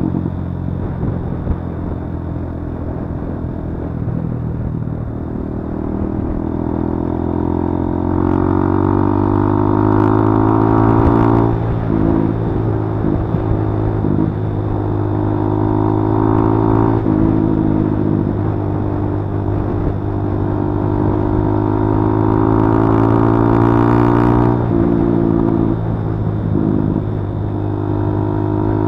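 Kawasaki D-Tracker 150's single-cylinder four-stroke engine riding under load. Its revs climb steadily and drop sharply at each of three upshifts, about a third, three-fifths and four-fifths of the way through.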